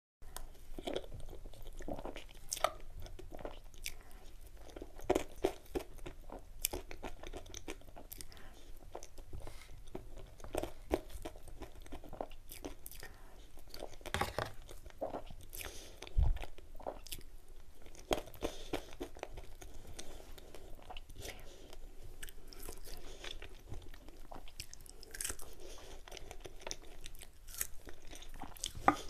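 Close-miked eating sounds: chewing and mouth clicks as chocolate-cream cake is eaten off a knife. A dull bump is heard about halfway through.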